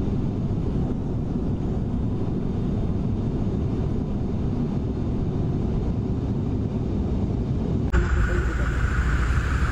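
Steady airplane cabin noise: the even low rumble of an aircraft in flight, heard from inside the cabin. About eight seconds in it cuts abruptly to a different, louder steady rumble.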